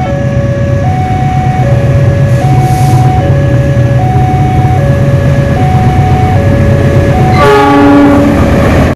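A CC206 diesel-electric locomotive approaching, its engine rumble building. Over it a level-crossing warning alarm alternates between two tones, each held for a little under a second. Near the end the locomotive sounds its horn once, for about a second.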